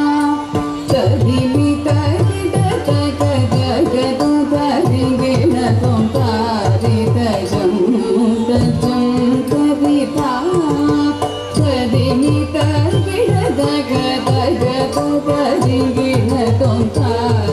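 A South Indian classical-style dance song: a singing voice over steady hand-drum beats and instruments, playing without a break.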